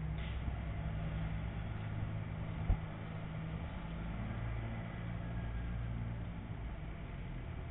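A low, steady mechanical hum that shifts slightly in pitch now and then, with one sharp click a little under three seconds in.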